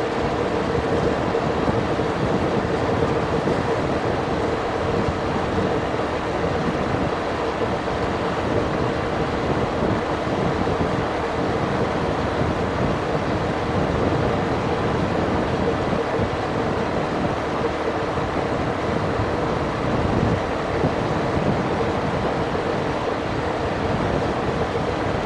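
Motor scooter running at a steady cruising speed, its engine humming evenly, with wind and road noise from riding.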